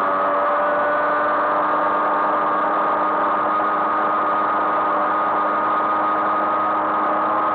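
Small two-stroke moped engine running at a steady cruising speed, a constant drone with an even pitch.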